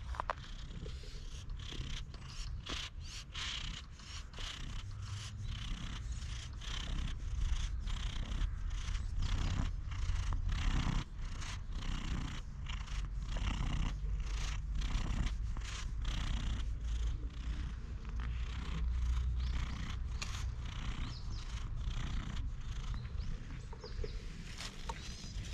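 Domestic cat purring steadily while being stroked, close up, with irregular rubbing and brushing noises as the hand and the cat's head move against each other.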